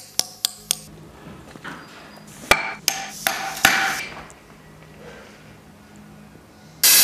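Hammer striking a steel chisel on stone: a quick run of sharp taps about four a second, then a few more spaced blows a couple of seconds later. Near the end a loud, steady power-tool cutting noise starts abruptly.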